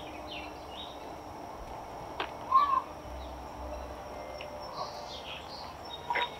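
Birds chirping and calling in the background of a garden, short scattered notes over a steady outdoor hiss, with one short louder sound about two and a half seconds in and a few sharp clicks near the end.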